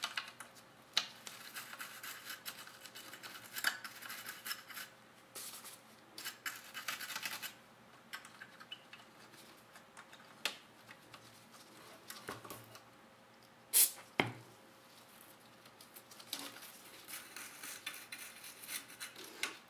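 Toothbrush bristles scrubbing DeoxIT onto tarnished connector pins of an AMI-Rowe R-88 jukebox amplifier board, in bursts of scratching with a few sharp clicks, the loudest about two-thirds of the way through. The pins are being cleaned of oxidation, the likely cause of the amp's intermittent channel dropout.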